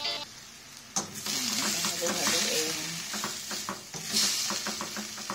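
String beans and pork sizzling in a hot stainless pan with soy sauce just added, a black plastic slotted spatula stirring and scraping, clicking against the pan. The sizzle starts about a second in.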